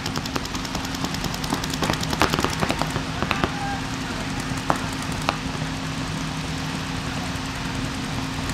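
Paintball markers firing: sharp pops in rapid strings, dense through the first three seconds, then scattered single shots.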